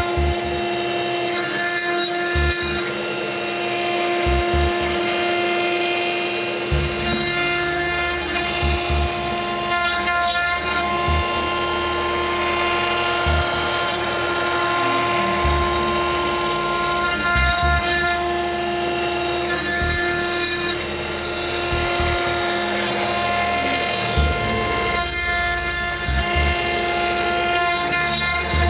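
CNC router spindle whining steadily at about 20,000 rpm while a 6 mm ball-nose cutter machines MDF. Swells of hiss from the cutting come and go every few seconds.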